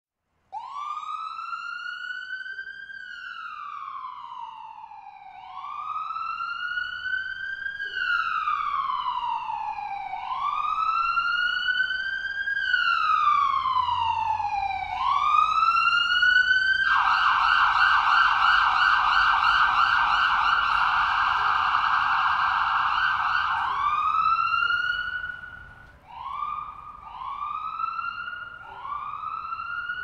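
Ambulance siren sounding a slow wail, its pitch rising and falling about every five seconds and getting louder. About halfway through it switches to a rapid warble for some seven seconds, then goes back to the wail with shorter sweeps near the end.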